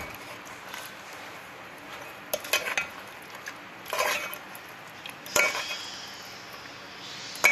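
A metal spoon clinking and scraping against a metal cooking pot while a thick meat curry is stirred: a quick cluster of clinks, then a few single knocks a second or so apart, one ringing briefly.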